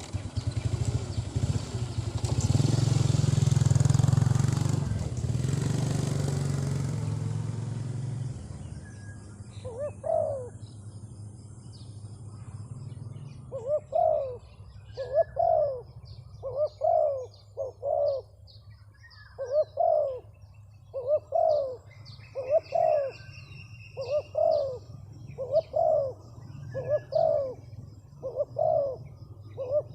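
Spotted dove cooing: a regular series of low coos, one about every second and a half, from the bird used as a decoy to coax wild doves down. A loud rushing noise fills the first several seconds, and small birds chirp faintly in the background.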